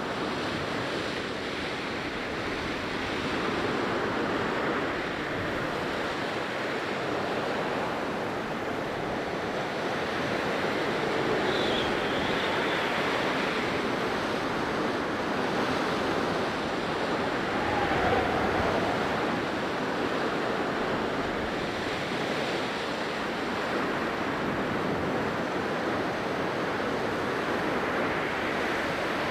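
Blizzard wind blowing hard and steadily, swelling in slow gusts, with a faint high whistle now and then.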